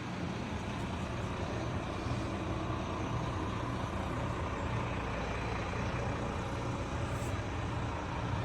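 Yamaha MT-07's 689 cc parallel-twin engine idling steadily through an aftermarket Kelpi shorty exhaust, with an even low pulse. It cuts off suddenly near the end.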